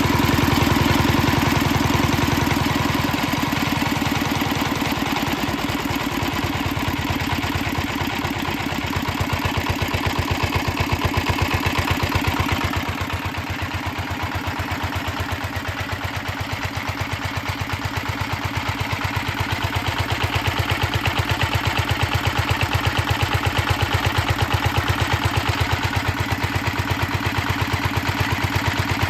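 Restored Petter PAZ1 single-cylinder stationary engine running slowly and steadily, with an even beat of firing strokes.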